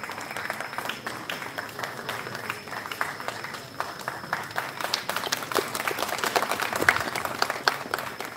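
Audience applauding, the clapping growing denser and louder about five seconds in, then dropping off at the very end.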